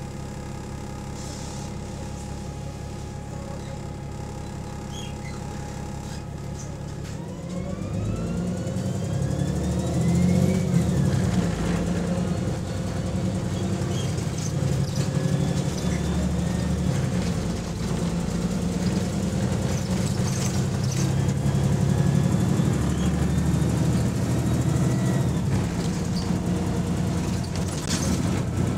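Double-decker bus engine idling, heard from inside the passenger saloon, then pulling away about seven seconds in: the engine gets louder and a rising whine from the Voith automatic gearbox climbs as the bus gathers speed, then runs on under load.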